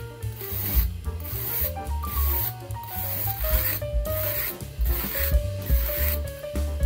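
Repeated rasping, rubbing strokes of raw vegetables being worked by hand for a cabbage salad, over background music with a melody and bass line.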